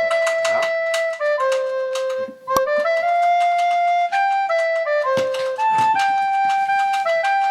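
Background music: a melody of held notes stepping from pitch to pitch, with light clicks and a sharp knock about two and a half seconds in.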